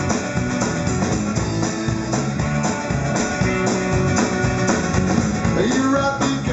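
Live band playing an instrumental passage between sung lines: guitars over a drum kit keeping a steady beat.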